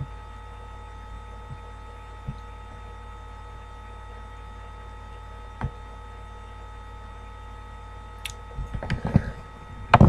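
Steady low electrical hum with faint steady tones over it. A single click comes about five and a half seconds in, and scattered clicks and rustling near the end build to a few loud knocks as the phone is handled.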